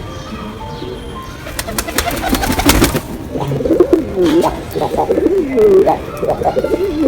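Domestic pigeon cooing, a run of wavering, rising-and-falling coos that starts about three seconds in and repeats. Just before the cooing there is a short burst of sharp clicks and rustles.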